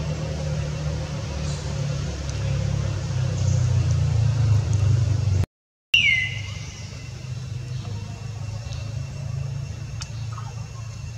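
A steady low rumble, cut off briefly about halfway through. Right after the break comes one short, high squeal falling in pitch, as from an infant macaque, with faint crackles of dry leaves over the rest.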